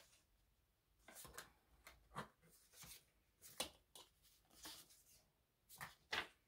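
Faint, short rustles and flicks of paper prop-money bills being handled and counted by hand, about seven in all, the sharpest a little past halfway and near the end.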